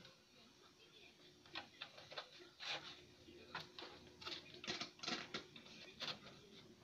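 Faint irregular clicks and scrapes of an RCA plug being worked into a CRT TV's front AV input jack, clustered from about a second and a half in until near the end.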